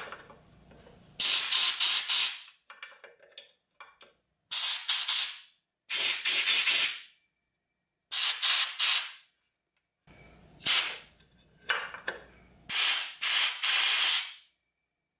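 Compressed-air blow gun hissing in a series of short blasts, each about a second long, as it blows out the fuel passages and shutoff valve of a Western Auto 5 hp outboard motor; the air is passing through with a good flow.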